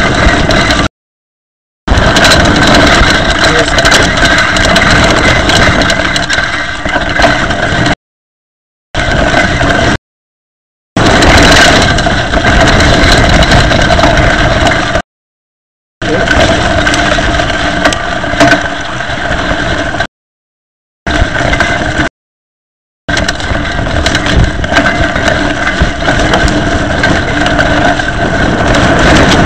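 Mountain bike disc brakes grinding with grit caught between the pads and discs: a loud, steady, droning scrape with several pitches held at once, the grit wearing down the pads. The sound cuts to dead silence for about a second several times.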